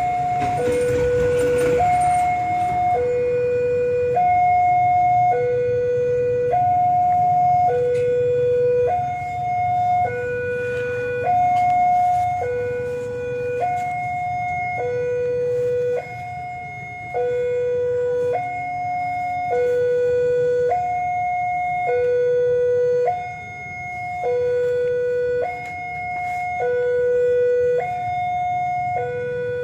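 Railway level-crossing warning alarm sounding, an electronic two-tone signal alternating between a low and a high tone about once a second, the warning that a train is approaching the crossing.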